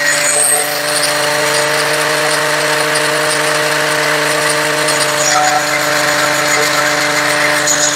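Angle grinder mounted on a lathe's tool post running steadily, its disc grinding down a steel valve shim that spins in the lathe chuck, with the lathe running underneath. A continuous, even motor hum with a gritty grinding noise over it.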